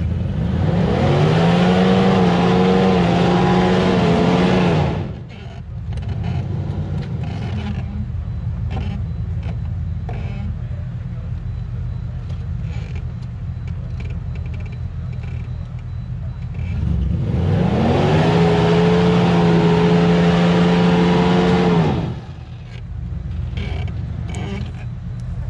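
Jeep Grand Cherokee ZJ engine revved hard twice, each time climbing quickly and holding high for about four seconds before dropping back to a steady idle. It is revving while the Jeep sits stuck on a muddy slope, struggling for traction.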